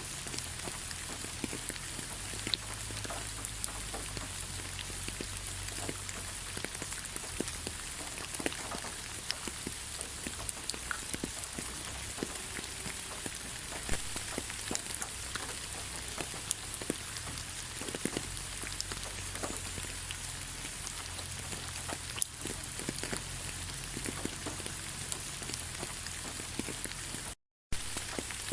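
Steady rain: an even hiss with many scattered individual drops ticking through it. The sound cuts out completely for a moment near the end.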